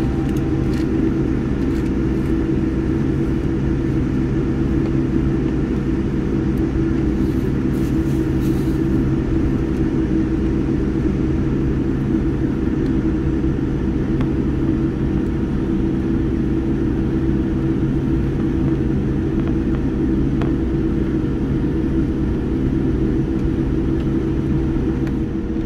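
Steady cabin drone inside a Boeing 787-9 airliner: a low rumble with several constant humming tones.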